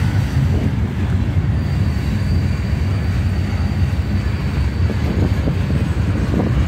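Freight train of covered steel-coil cars rolling past: a steady low rumble of wheels on rail.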